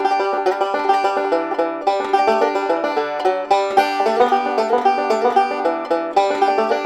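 Banjo picked in a fast bluegrass style, a quick, unbroken stream of bright plucked notes.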